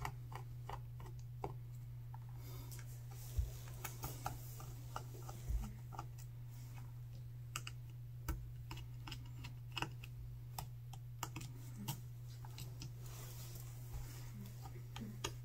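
Small, irregular clicks and taps of a precision screwdriver working the tiny screws out of a smartphone's internal frame, over a steady low hum.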